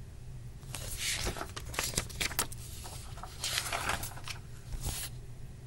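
A page of a paperback picture book being turned: paper rustling and crinkling in a string of quick scrapes for about four seconds.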